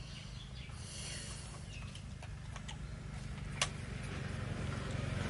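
Faint clicks and smacks of a baby monkey sucking at a milk bottle, with one sharp click about three and a half seconds in, over a low steady hum.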